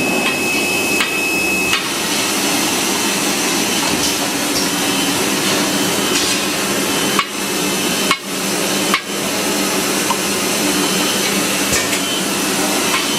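Automatic bottle washing, filling and capping line running: a steady mechanical hum and clatter, with a few sharp knocks about seven to nine seconds in.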